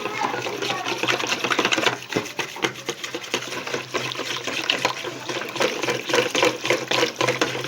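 Runny flour, milk, oil and water batter being mixed by hand in a bowl: wet sloshing with a fast, irregular run of clicks from the utensil against the bowl.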